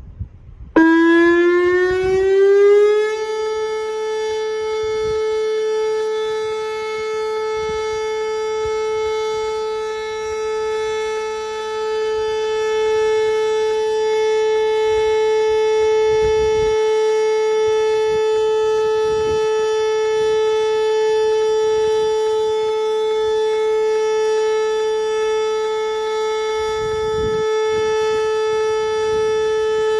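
Whelen WPS 2909 electronic tornado siren starting about a second in, rising briefly in pitch and then holding one steady tone: the Alert signal, which this system sounded for severe thunderstorm warnings, here given as a test.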